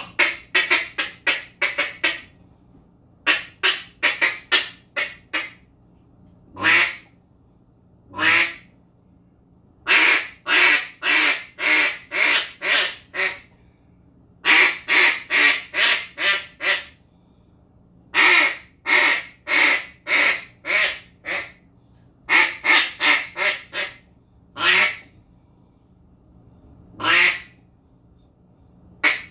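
Single-reed duck call blown in mallard-hen quacks: runs of five to eight quick quacks, some runs fading off toward the end, with single drawn-out quacks between the runs.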